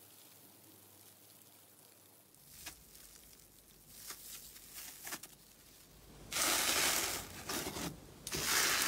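Airy, bubble-filled slime being stretched and then pressed by hand. It is quiet at first, with a few faint sticky pops. From about six seconds in comes a loud, dense crackling as the trapped air bubbles pop and squelch.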